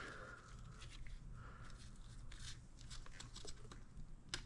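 Faint small clicks and light scraping of hands handling engine parts, with one sharper click near the end, over a low steady room hum.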